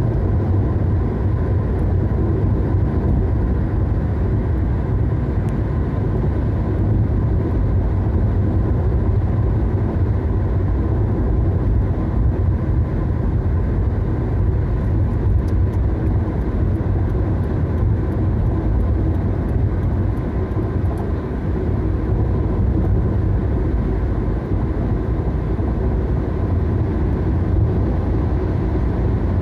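Steady low rumble of tyres and wind heard inside a car's cabin cruising at highway speed.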